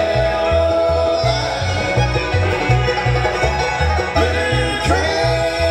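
Live bluegrass band (banjo, fiddle, guitar, mandolin and upright bass) playing an instrumental passage, with no singing. A steady bass beat of about two notes a second runs under long held notes that slide up in pitch about four seconds in.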